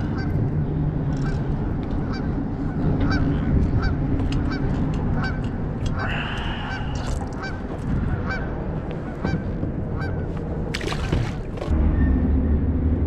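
Geese honking again and again, a call about every half second to second, over a steady low rumble.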